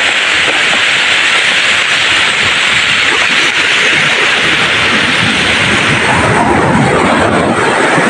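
Sea surf breaking and washing over a pebble beach: a loud, steady rush, with a deeper surge about six seconds in.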